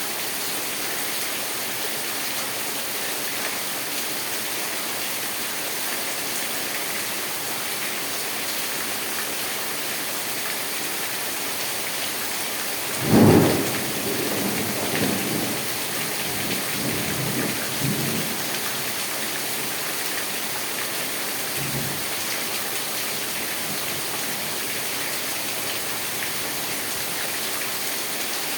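Steady rain falling, with a loud clap of thunder about halfway through that rumbles on unevenly for several seconds.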